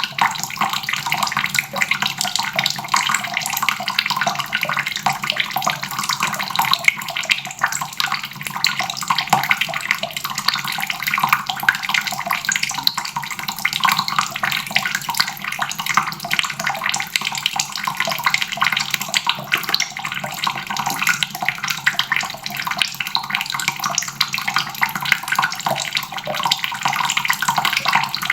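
Water running steadily from a faucet, splashing into a basin.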